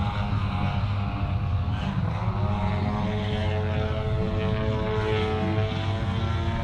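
Apex Aerotech 102" Slick 360 large-scale RC aerobatic plane's engine and propeller running in flight. The pitch dips about two seconds in, then climbs and holds as the throttle changes through the manoeuvres.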